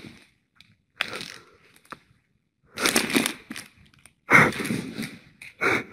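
A clear plastic coin purse with coins inside being squeezed and handled, crinkling and crunching in several short bursts with pauses between.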